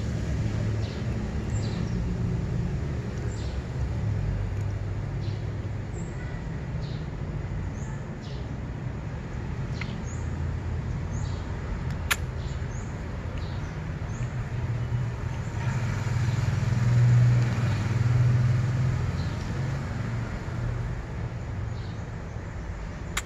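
Steady low rumble of road traffic, swelling as a vehicle passes about two-thirds of the way through, with short faint high chirps recurring and one sharp click about halfway.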